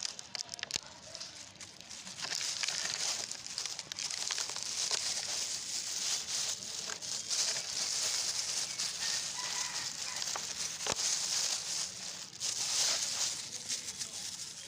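Plastic rubbish crinkling and rustling as it is handled, a dense crackle that starts about two seconds in.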